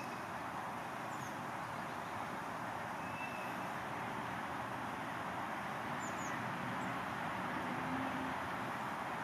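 Steady outdoor ambience, an even rushing background noise, with a few faint high bird chirps about a second in and twice around six seconds.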